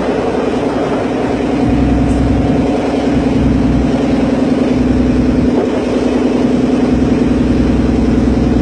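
Ferry boat's engine running steadily, a constant loud drone, with wind gusting on the microphone in low rumbles.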